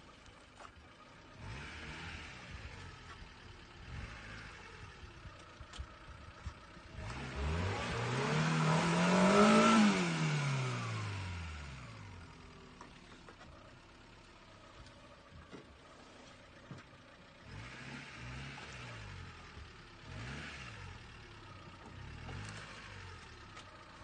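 Suzuki Jimny's engine revving while the 4x4 crawls along a steep muddy side slope: one big rev, climbing for about two seconds and falling back over the next two, a third of the way in, then several shorter throttle blips near the end.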